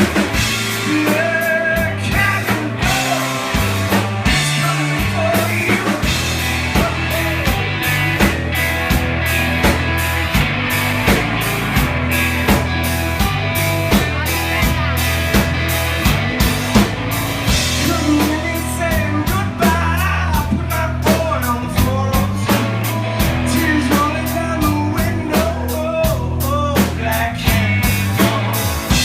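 Rock band playing live: a drum kit keeping a steady beat over electric guitar and bass, with a voice singing at times.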